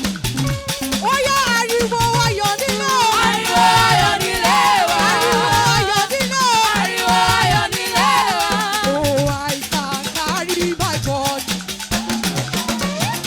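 Live upbeat church praise music: a busy shaker-and-percussion groove over a repeating bass line, with a gliding melodic lead above it that is fullest in the middle.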